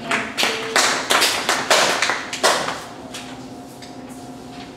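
A few people clapping briefly, a short run of irregular claps that stops about two and a half seconds in, leaving a faint steady hum.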